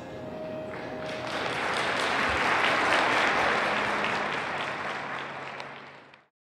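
Audience applauding, swelling over the first few seconds, then fading and cutting off abruptly near the end.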